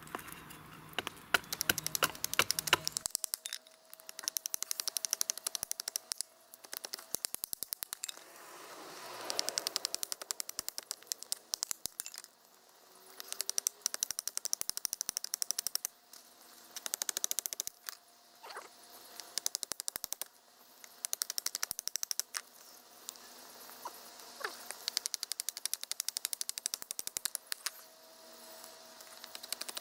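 Small hatchet working a stick of wood on a wooden chopping block: runs of rapid clicking and chipping, each lasting a second or two, with short pauses between them.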